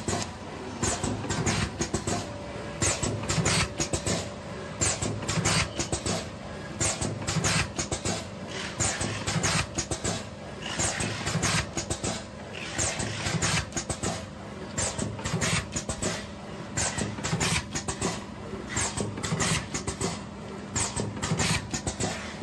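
Automatic liquid sachet filling and sealing machine running, its air-cylinder-driven sealing and cutting jaws clacking in a repeating cycle about once a second.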